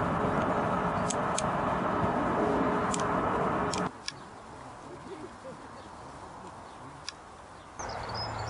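Steam train passing: Merchant Navy class Pacific 35028 Clan Line hauling a rake of coaches, a loud steady rumble with a ringing tone and a few sharp clicks. It cuts off suddenly about four seconds in to quiet open-air background, and near the end a louder steady background with a low hum comes in.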